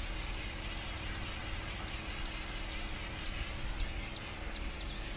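Machine-fed white cement spray gun spraying slurry onto a wall: a steady hiss over a low hum.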